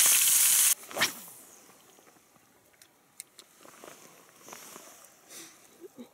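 Fish frying in a pan, sizzling loudly, cut off abruptly under a second in. Then a single short sharp sound, followed by a quiet stretch with a few faint scattered ticks and rustles.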